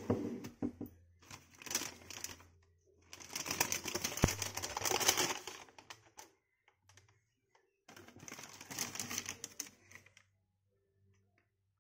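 Tissue paper wrapping in a cardboard shoebox crinkling and rustling as it is folded back from a pair of sneakers, in several bursts; the longest and loudest runs from about three to six seconds in.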